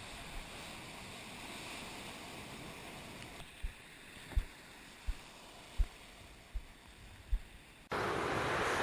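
Ocean surf washing on the beach, with several short low thumps of wind on the microphone. About eight seconds in, the surf noise suddenly gets much louder.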